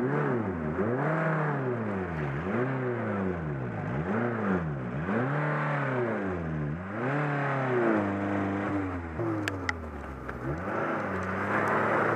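Off-road 4x4's engine revved up and down over and over, about once a second, as the throttle is pumped. A few sharp clicks come near the end, and then the engine holds steadier, higher revs.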